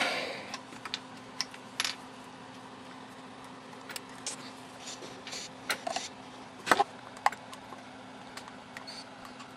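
Scattered clicks, knocks and scrapes of a moulded plastic instrument case being handled and worked open with a small tool. The loudest is a sharp crack about seven seconds in.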